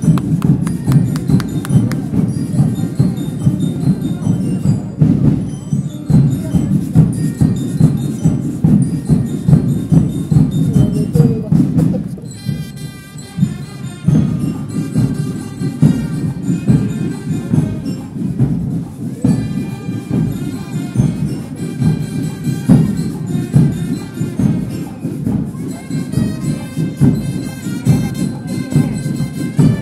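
Parade band music: steady, dense drumming under a bright, bell-like melody, with a brief quieter stretch about twelve seconds in.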